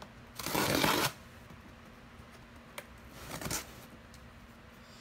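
Cardboard shipping box being opened and handled: a loud papery scrape lasting under a second, a sharp click about three seconds in, then a shorter rustle.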